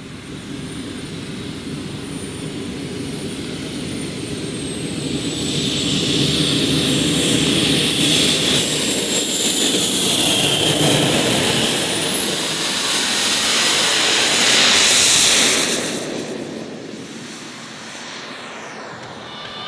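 JetCat P220-RXi model jet turbine running with a high whine over a rumble during a takeoff run. The whine rises as it spools up about two-thirds of the way in, and the sound peaks in a loud rush before fading as the jet climbs away.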